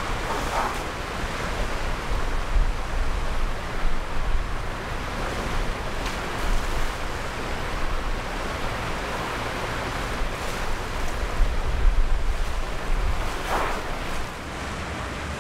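Wind buffeting the microphone with a steady low rumble, over water sloshing around elephants wading in a pool. The noise drops a little near the end.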